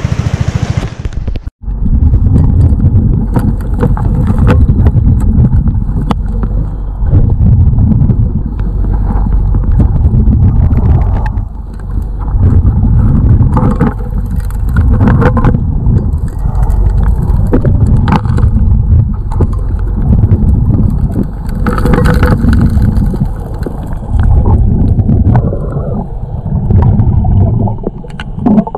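Underwater sound of a gas-powered gold suction dredge working a riverbed: a loud, low rumble that swells and eases, with many sharp clicks and knocks of gravel and stones.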